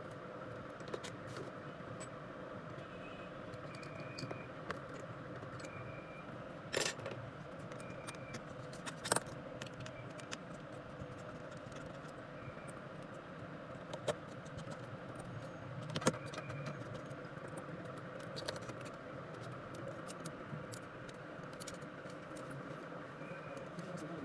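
Small metallic clicks and taps from hand tools on a phone repair bench, scattered and irregular, over a steady low hum. The sharpest clicks come about seven, nine, fourteen and sixteen seconds in.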